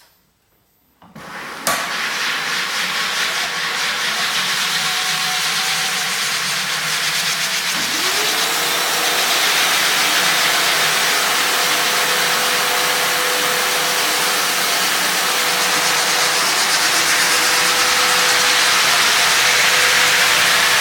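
Frank Spider floor sander starting up about a second in on about half speed, then running with its 36-grit zirconia abrasive grinding glue and coating off the floor: a loud, steady hiss. From about eight seconds in, a whine rises and then holds steady.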